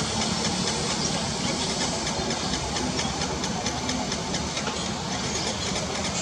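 Steady outdoor background noise with a low hum, like distant engine or traffic noise, and faint irregular ticking.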